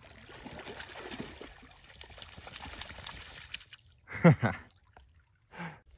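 A large dog moving in a muddy puddle, water sloshing and splashing with small splats and drips. About four seconds in, a short, loud voice-like sound falling in pitch.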